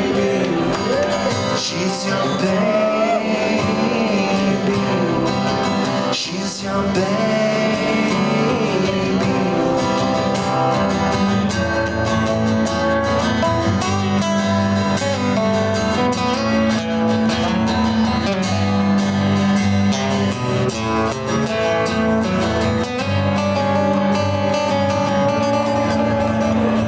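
Two acoustic guitars playing an instrumental passage of a live song, strummed and picked steadily with no lyrics sung.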